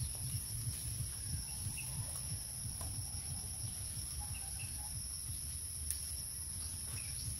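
Chickens clucking faintly over a steady high-pitched insect drone and a low wind rumble, with a few light clicks of bamboo strips being woven.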